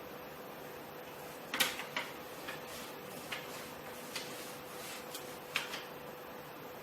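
A scatter of short clicks and knocks, about eight over a few seconds, the loudest about a second and a half in and again near the end, over a faint steady hum: a new 3D printer and its parts being handled while it is unboxed.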